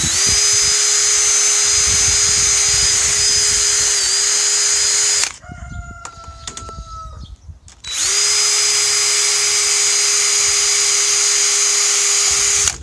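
Electric drill running at a steady speed with a piece of round chainsaw file in its chuck, grinding the chainsaw chain's cutters; it stops after about five seconds and starts again nearly three seconds later. In the gap a rooster crows once.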